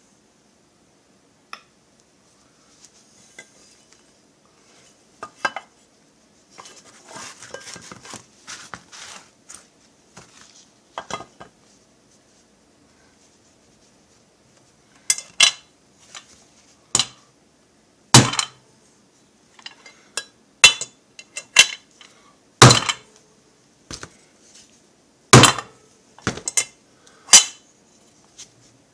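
Sharp metallic clinks and knocks as a bearing and a steel driver are set into a heat-expanded chainsaw crankcase. The clinks come as separate hits, roughly one to two seconds apart through the second half, after quieter handling and rustling earlier on.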